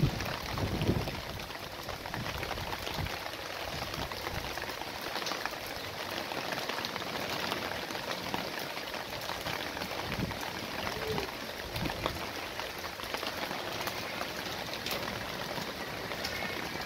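Steady rain falling on leaves and ground: an even hiss dotted with the ticks of individual drops. There is a low rumble of wind on the microphone about a second in.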